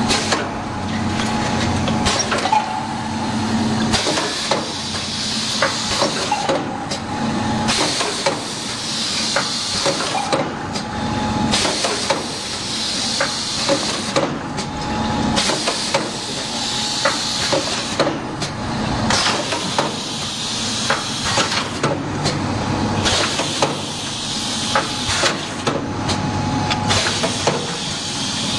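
Automatic four-lane cup filling and sealing machine running: repeated clacks and knocks, with a hiss of air from its pneumatic sealing gear swelling about every four seconds.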